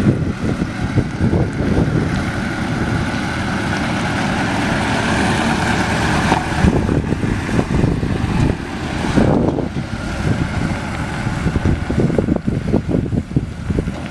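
1993 Chevrolet C/K 3500 pickup's 6.5-litre V8 diesel engine running, with a steady low pulsing.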